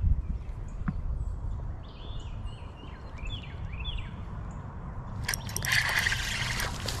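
A hooked crappie splashing and thrashing at the water's surface from about five seconds in. Before that, wind rumbling on the microphone and a few short bird chirps.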